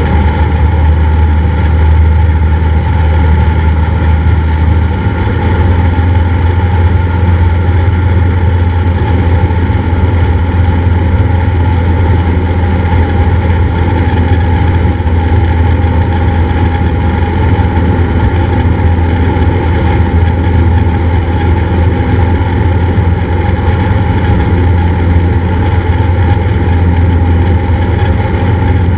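Cessna 172's piston engine and propeller droning steadily in flight, with a strong low hum.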